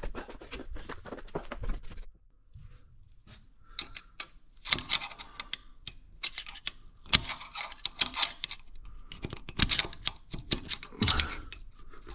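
Irregular metallic clicks, taps and light scrapes of a screwdriver and steel parts inside a Ford 8.8 differential housing, being worked to free an axle shaft. There is a brief lull about two seconds in.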